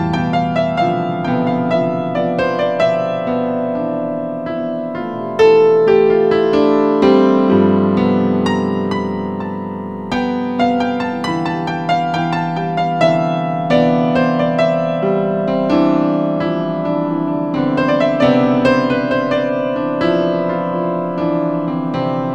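Solo electro-acoustic piano music: overlapping sustained notes with new notes struck every fraction of a second, stepping up in loudness about five seconds in.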